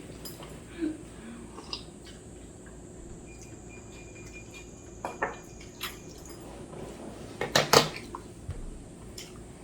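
A few short clinks of dishes and cutlery at a meal table, the loudest two close together about three-quarters of the way through.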